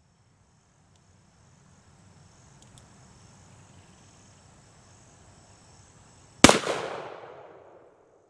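A single shot from a Pietta 1863 Remington pocket revolver, a cap-and-ball black-powder revolver, about six and a half seconds in; the report echoes and dies away over about a second and a half. Before it, a faint steady high-pitched hum.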